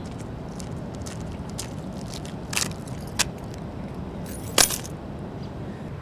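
Keys on a lanyard jangling in short bursts, the loudest jingle about four and a half seconds in, over a steady low outdoor background.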